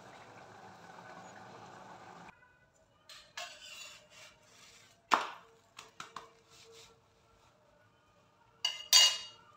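A steady hiss for about the first two seconds, then a steel spatula tapping and scraping on an iron tawa, with a sharp metallic clink about five seconds in and a louder, ringing one near the end.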